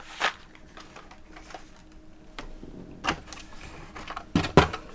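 Hot Wheels cars in plastic blister packs on card backs being handled and pulled from a cardboard case: a few irregular sharp clicks and taps of plastic and card, two close together near the end.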